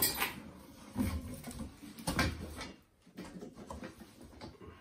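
Cardboard box rustling and scraping as a red painted metal tipper-trailer frame is lifted out of it, with a few knocks and bumps: a few sharp rustles or knocks at the start, about a second in, and just after two seconds, with quieter handling noise in between.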